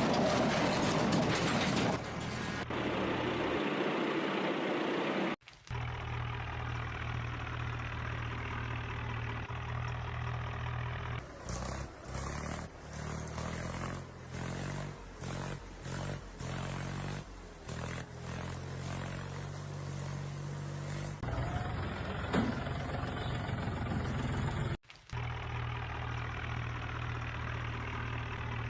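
Vehicle engine sounds: a steady engine hum that switches abruptly several times, broken in the middle by a long run of short, repeated stops and starts.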